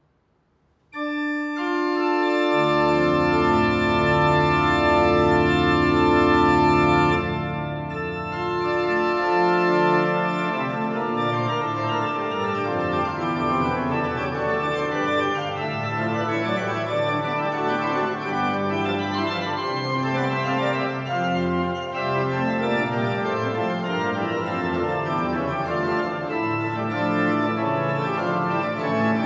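Reil choir pipe organ starting a toccata-style variation: it enters suddenly about a second in with full sustained chords, lower notes joining soon after, then from about ten seconds in it moves into fast running passages.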